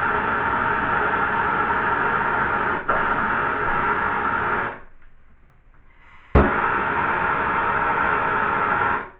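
Plumber's gas torch burning with a steady hiss while heating a copper fitting for soldering. It is shut off about five seconds in, relit with a sharp igniter click about a second and a half later, and shut off again just before the end.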